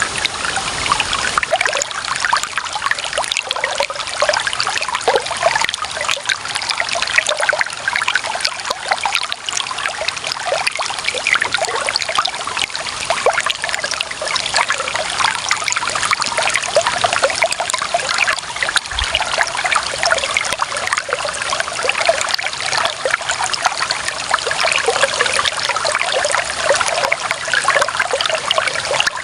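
Clear running water trickling and splashing steadily over stones, a bright, even babble with many small splashes.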